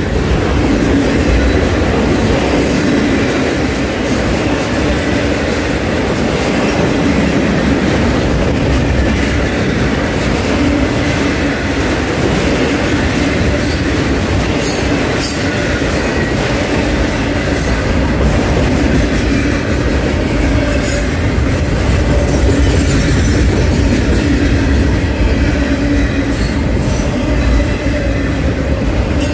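Freight train's cars, flatcars and autoracks, rolling past at close range: a steady rumble and rattle of steel wheels on rail, with a faint thin wheel squeal and brief sharp clanks now and then.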